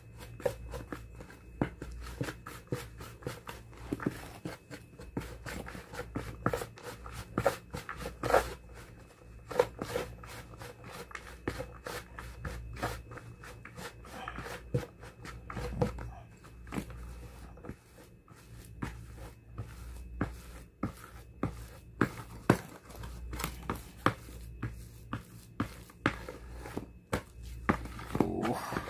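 A plastic spoon stirring and scraping a dry mix of flour and bird-feed pellets around a plastic basin: an irregular run of gritty scrapes and knocks.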